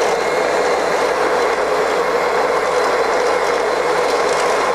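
Ruwac single-venturi, compressed-air-powered explosion-proof industrial vacuum running at full suction, its 2-inch hose and wand sucking up fine bentonite powder: a loud, steady rush of air.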